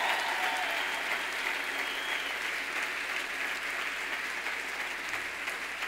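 Large crowd applauding, many hands clapping together, the applause slowly dying down.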